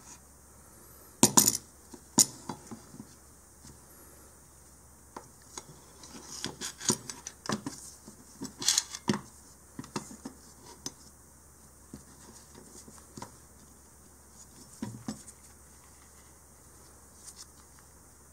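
Metal parts of an E-11 blaster replica's folding stock clicking and clacking as they are handled and fitted together. The clicks come irregularly, the loudest about a second in, a busy run of them in the middle and a last pair near the end.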